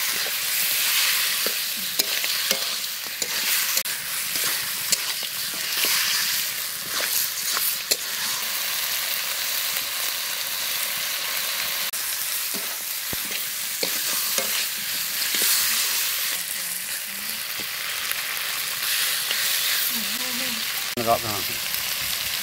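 Chicken pieces sizzling in a metal kadai over a wood fire, with a metal spatula scraping and stirring through them in irregular strokes.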